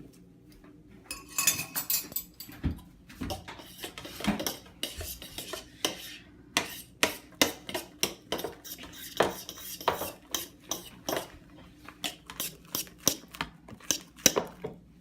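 A utensil stirring glitter-glue slime in a bucket as borax activator is mixed in, knocking and clicking against the container in quick, irregular strikes.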